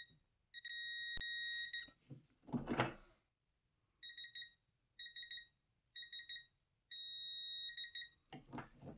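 Digital torque adapter's audible torque alert beeping: a long steady beep about half a second in, then short triple-pip groups about a second apart, then another long beep near the end. The beeping signals that the torque reading is at or past its alert setting, close to the meter's roughly 150 foot-pound limit for alerts. A single click and a short scraping sound come between the beeps.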